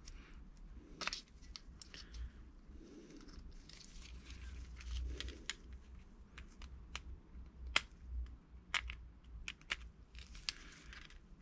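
Small screwdriver tip scraping and picking at a steel Brembo brake caliper hardware clip, cleaning dirt off it: irregular sharp metallic clicks and short scratches.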